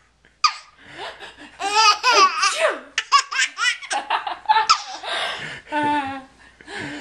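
Small child laughing in repeated high-pitched bursts, set off by someone's sneezes.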